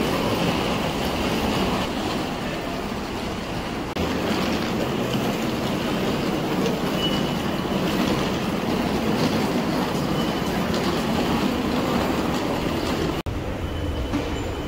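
Steady rumbling noise of a subway station, dropping out briefly about four seconds in and cutting off sharply near the end before returning quieter.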